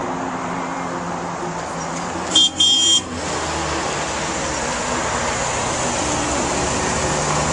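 Steady street traffic noise, broken about two and a half seconds in by two short, high-pitched toots: one brief, the next about half a second long.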